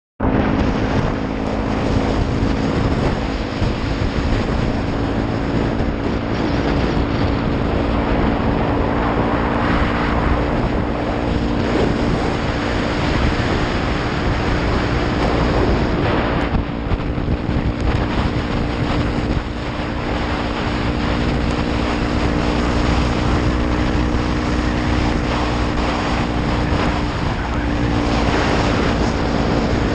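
2015 Honda Grom's 125 cc single-cylinder engine with a Pro Circuit exhaust running at a steady cruise. Wind rushes loudly over the camera's microphone and covers much of the engine note.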